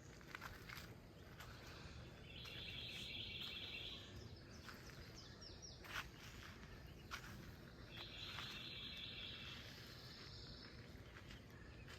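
Faint outdoor ambience with a few short high bird chirps and two buzzy trills of about a second and a half, one a couple of seconds in and one about eight seconds in, plus scattered soft clicks and knocks.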